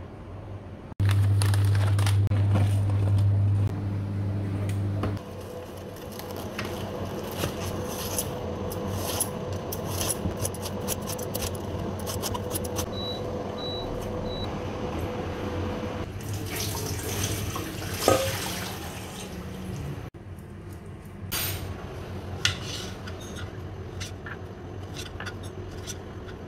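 Kitchen food-preparation sounds in several short clips: a steady electrical hum, loudest in the first few seconds, then a running-water hiss as shredded cabbage is handled in a metal bowl, and near the end knife taps on a cutting board as cherry tomatoes are cut.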